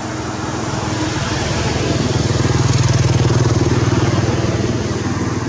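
A small engine running as it passes, growing louder to a peak about three seconds in and then fading.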